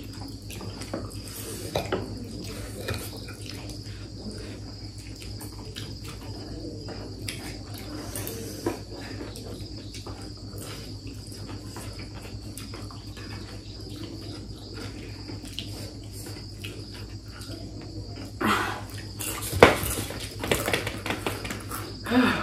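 Forks clinking and scraping on plates as two people eat noodles: many small, irregular clicks. A steady high-pitched tone runs underneath, and a few louder sounds come near the end.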